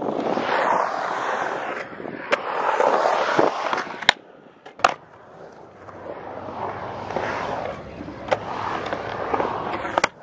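Skateboard wheels rolling across a concrete bowl, the rumble swelling and fading about three times as the board carves past, with several sharp clacks of the board against the concrete.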